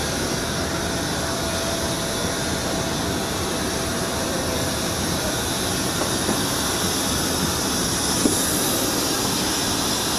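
Steady, loud rushing hiss of a parked Boeing 737 airliner's air-conditioning and auxiliary power at the boarding door, with a faint steady tone underneath. There is a single light knock about eight seconds in.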